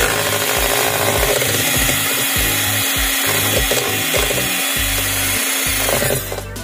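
Hanabishi electric hand mixer running steadily, its beaters whisking milk and cream in a stainless steel bowl; it switches off near the end.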